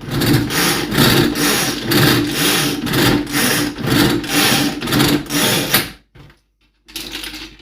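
Electric food processor running with its blade chopping raw cauliflower into rice-sized bits, a loud grinding whir with a pulsing rattle about twice a second as the pieces are thrown around. It stops suddenly about six seconds in.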